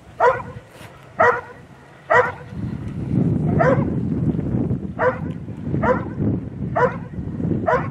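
A Belgian Malinois barks eight times at a steady pace of about one a second. This is the hold-and-bark at the blind, the dog guarding a helper in a bite sleeve.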